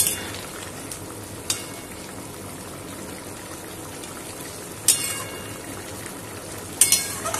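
Curry simmering in a metal kadai with a steady bubbling hiss, while a metal spatula stirs it and clinks against the pan a few times: about a second and a half in, near five seconds, and twice near the end.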